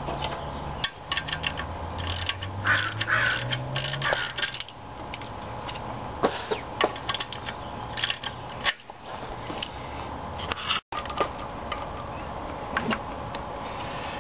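Hand wrench clicking and clinking on steel as the bolts holding a clutch pressure plate to the flywheel of a Chevy 350 small-block V8 are tightened, in irregular sharp metallic clicks.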